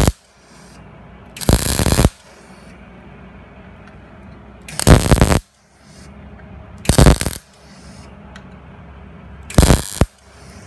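Wire-feed (MIG) welding arc crackling in four short bursts of about half a second each, a couple of seconds apart, as a rusted, broken-off car exhaust pipe is tacked back together.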